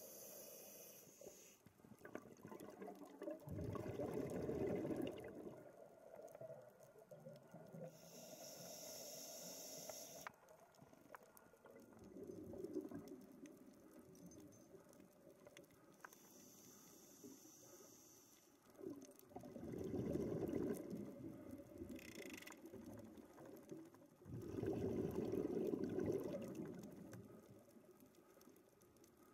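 Scuba regulator breathing underwater: a high hiss on each inhalation and a burst of bubbling exhaust on each exhalation, four breaths several seconds apart.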